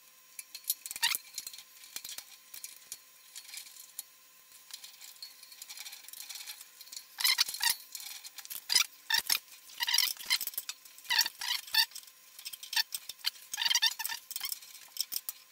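Small handwork clicks, scrapes and rattles of a screwdriver turning screws at an earth terminal and a plastic switch box being fitted against a metal saw frame, in irregular bursts that get busier from about halfway.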